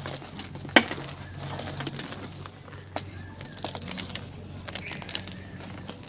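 Reformed gym chalk being crushed and crumbled by hand: scattered crunchy cracks and crumbling, with the sharpest snap about a second in.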